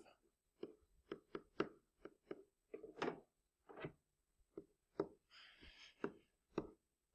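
Faint, irregular taps of a stylus pen on a tablet screen during handwriting, about fifteen light knocks at two or three a second, with a short scratchy stroke a little after five seconds in.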